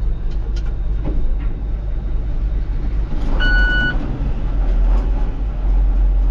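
A farm vehicle's engine running steadily with a low rumble, and a single electronic beep lasting about half a second roughly halfway through.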